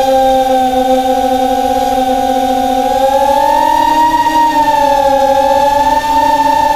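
Electric motors and propellers of a Mini Talon quadplane whining on board as it climbs, several steady tones at once; the pitch rises a little about three seconds in and then eases back slightly.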